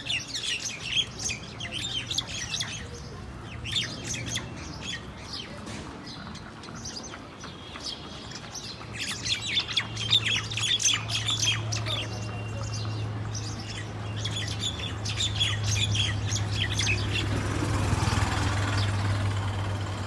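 Common mynas squawking and chirping in quick, harsh, overlapping calls while fighting on the ground. A steady low hum comes in about halfway and grows louder.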